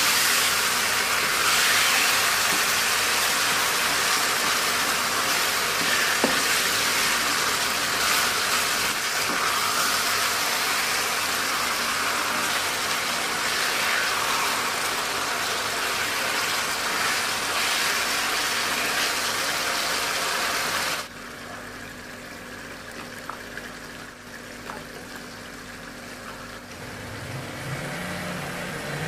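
Shallots, garlic, ginger and chilies frying in hot oil, a steady sizzle that drops suddenly to a faint hiss about two-thirds of the way through.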